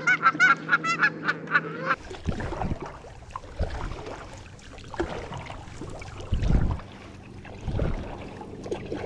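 Geese honking in a quick run of short calls for about two seconds, then the calls stop abruptly and a low rushing noise with a few thumps takes over.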